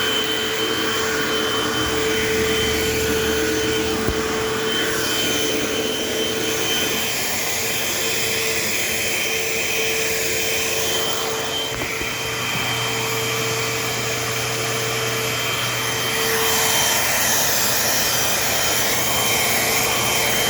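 Eureka AirSpeed AS1101 upright vacuum cleaner running, with a steady motor whine over rushing air. About 16 seconds in the lower whine drops away and the airflow hiss gets louder.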